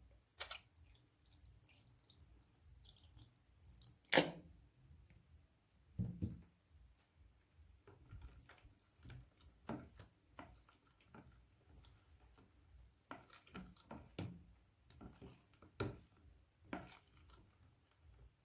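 Sticky slime being squeezed and handled, giving a string of small wet clicks and pops at an irregular pace, with one sharper pop about four seconds in.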